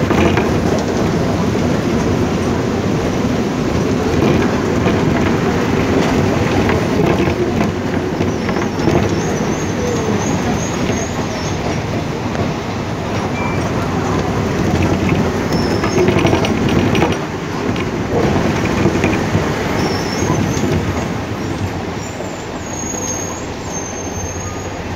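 Steady engine and road noise heard from inside a vehicle driving on a wet road in heavy rain, with faint high squeaks about nine seconds in and again near the end.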